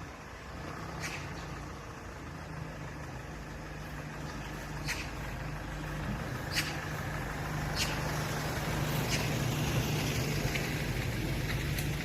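Steady low engine rumble of nearby traffic that slowly grows louder, with short sharp magpie calls every second or two above it.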